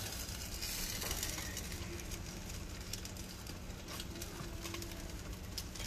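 Metal spoon stirring a thick, wet rice and tomato-sauce mixture in a disposable aluminium foil pan: faint scraping and small ticks of the spoon. A low steady hum sits underneath.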